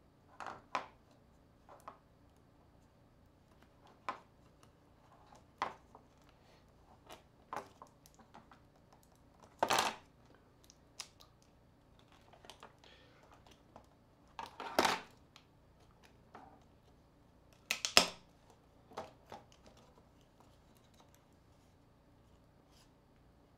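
Scattered small clicks, taps and scrapes of hand tools and plastic mobile-phone parts being handled during disassembly, with louder clacks about ten and eighteen seconds in and a short scrape about fifteen seconds in.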